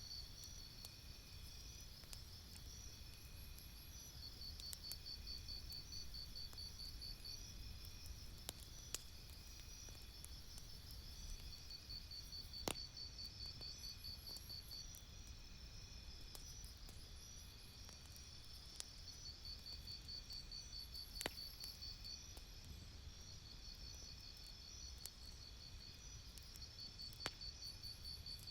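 Night insects, cricket-like, chirping in steady pulsing trills, with a few sharp pops from a crackling campfire, the loudest about a third of the way in, again past two-thirds, and near the end.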